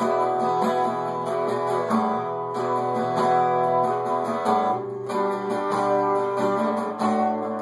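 Strummed acoustic guitar playing chords between sung verses of a song.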